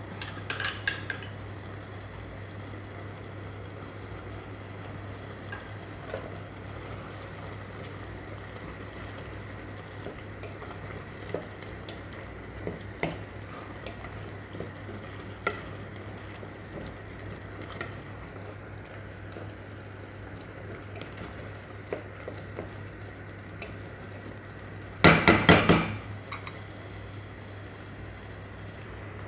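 A spoon stirring thick prawn masala sauce in a pot over a faint sizzle, with scattered taps and scrapes against the pot and a steady low hum underneath. Near the end comes a brief run of loud knocks and clatter against the pot.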